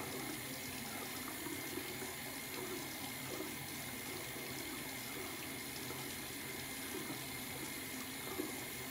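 Water tap running steadily into a bathroom sink.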